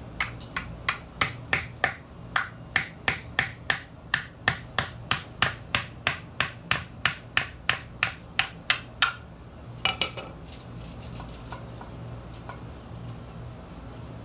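Claw hammer striking the end of a screwdriver held against a coconut, about three sharp blows a second in an even run for some nine seconds, then two last knocks about a second later. The blows are driving the screwdriver through the hard shell to open a hole for the coconut water.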